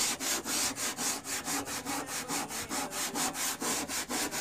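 Green Scotch-Brite scouring pad scrubbed back and forth on a rusted steel car fender panel wetted with Coca-Cola, to scour off the rust. It goes as quick, even rasping strokes, about five a second.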